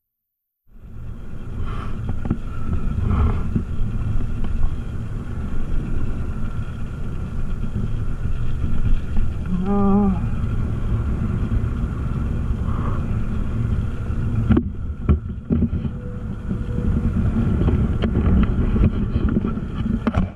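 Wind buffeting the microphone of a camera on a moving bicycle, a dense rumble that flickers unevenly. A short wavering tone sounds about halfway through.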